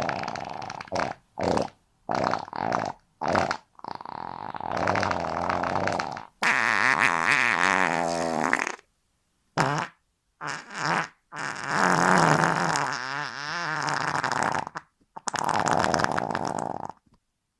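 A string of about a dozen fart sound effects played one after another, cut apart by dead-silent gaps. Some are short pops of a fraction of a second, others long sputters of two to three seconds that waver in pitch. They stop just before the end.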